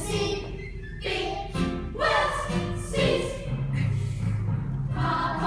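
A group singing a song together over musical accompaniment.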